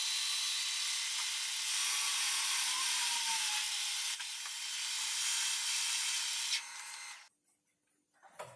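Metal lathe parting off a steel shaft, its sound sped up with the footage: a steady high hiss that stops suddenly about seven seconds in. After a short quiet comes a single knock near the end.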